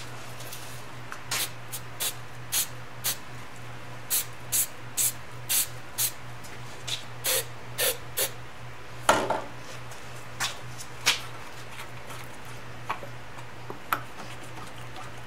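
Aerosol hairspray can giving a dozen or so short spurts onto a motorcycle handlebar and into a rubber grip, used as a grip adhesive. About nine seconds in there is a longer rub as the grip is pushed onto the bar, then a few more short sprays and light clicks.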